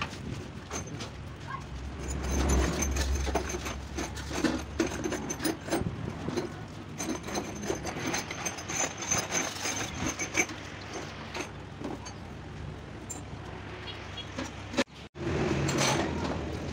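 Hands scrubbing a wet steel cylinder liner over a metal pan of washing liquid: irregular rubbing and scraping with small clinks of the liner against the pan and sloshing liquid.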